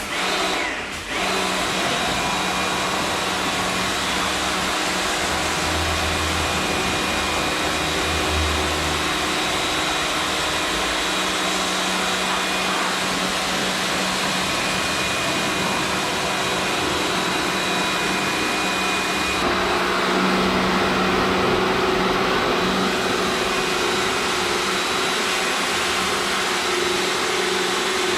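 Pressure washer running steadily, a constant motor drone with a spray hiss; its tone shifts about two-thirds of the way through.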